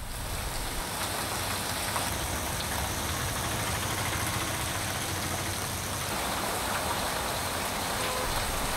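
Heavy rain pouring onto a flooded street, a steady hiss, with a low rumble of traffic driving through the standing water underneath.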